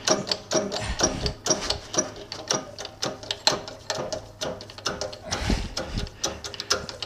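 Hydraulic shop press being pumped by hand: the bottle jack's handle and pump click and clank about three times a second, unevenly, as the ram presses a lathe spindle out of its bearing. A couple of duller thumps come a little before the end.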